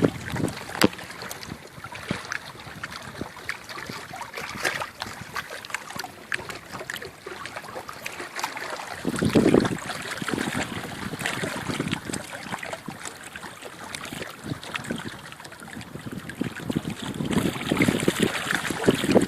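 River water lapping and splashing in many small ticks, with wind buffeting the microphone. Louder swells come about nine seconds in and again near the end.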